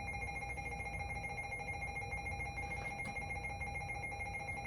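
Dead air on an alert broadcast between messages: a low hum and hiss with two faint steady tones, one mid-pitched and one higher.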